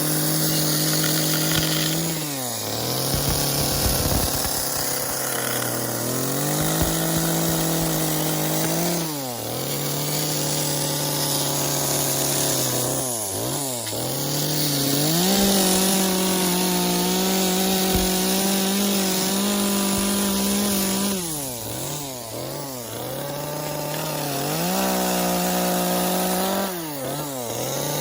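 Chainsaw running at high revs while cutting wood, its engine note dropping back and climbing again about five times as the throttle eases off and opens up between cuts.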